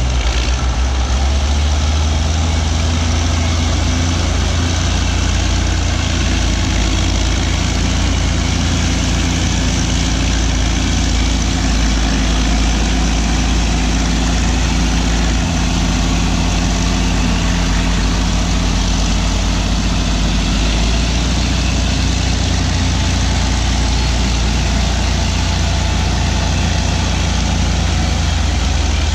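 Diesel engines of two crawler dozers, an Allis-Chalmers HD-16 and a Caterpillar D8, running steadily as the machines push dirt with their blades.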